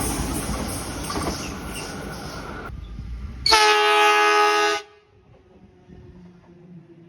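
Sydney suburban train running with a rumble that fades away, then after an abrupt break a train horn sounds one loud blast of just over a second, several tones together, cut off sharply.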